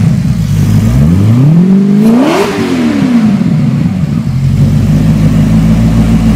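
Maserati V8 engine in a custom motorcycle, blipped once: it rises slowly to a peak about two and a half seconds in, drops back, and settles into a steady idle with a deep rumble.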